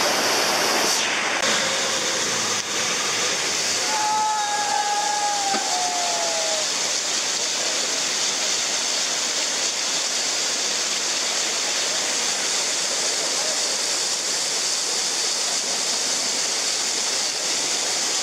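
Steady rushing of a muddy glacial meltwater torrent, with a drawn-out human shout falling in pitch about four seconds in.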